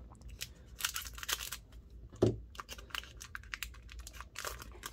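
Foil Pokémon booster pack wrapper crinkling as it is handled and cut open with scissors: a run of sharp crackles, with a single louder snap a little over two seconds in.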